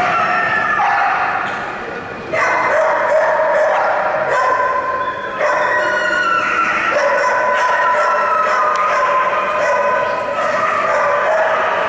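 A dog barking rapidly and continuously, the barks running together in the echo of a large indoor hall, with brief lulls about two seconds in and again about five seconds in.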